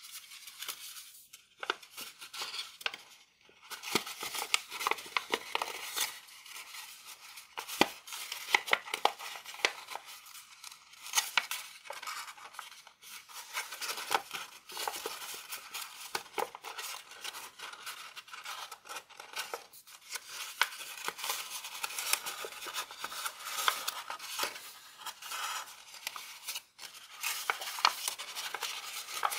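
Sheet of stiff, textured Grainy origami paper rustling and crinkling as hands fold and shape it, with many irregular sharp crackles and clicks as the layers are creased and pressed.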